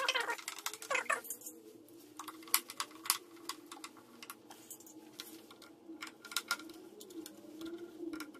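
Hand screwdriver driving screws into a plastic top case carrier lid: irregular small clicks and ticks of the screwdriver tip and screws against the plastic.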